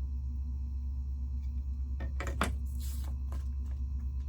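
Steady low electrical hum, with a few light clicks and a brief rustle about two seconds in as small Lego pieces and a sticker sheet are handled.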